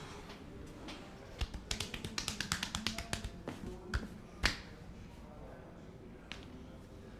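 Joints cracking under a chiropractic adjustment. A quick run of small clicks, about eight a second for two seconds, is followed by two louder single pops half a second apart, the second the loudest.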